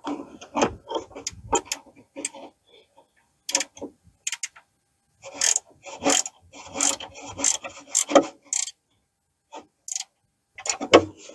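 Hand wrench ratcheting in short runs as a front A-arm guard bracket bolt is tightened, among scattered metallic clicks; the ratcheting runs come mostly in the second half.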